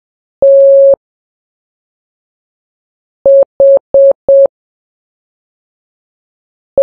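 Morse code practice tone, a steady mid-pitched beep keyed on and off. One long dash (the letter T), then after a pause four quick dots (the letter H), and a new short beep starting right at the end.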